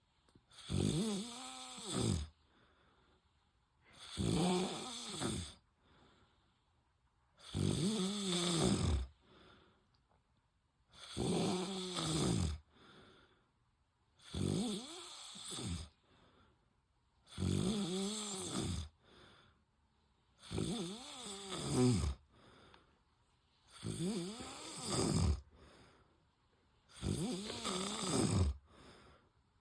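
A man snoring in his sleep: nine drawn-out snores, evenly spaced about three seconds apart, each with a tone that rises and then falls.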